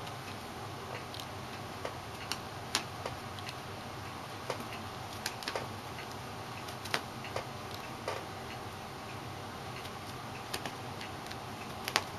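Irregular light clicks and taps from a cat scrambling and pouncing on carpet while it chases a laser dot, over a steady hiss. The sharpest click comes just before the end.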